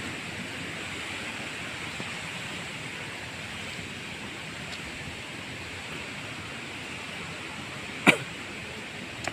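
Steady rush of a waterfall, with one sharp knock about eight seconds in.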